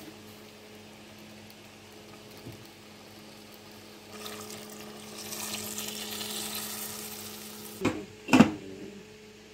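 Potatoes sizzling in a hot steel pot, the sizzle swelling about four seconds in, then a glass lid set down on the pot with two clanks near the end, over a steady low hum.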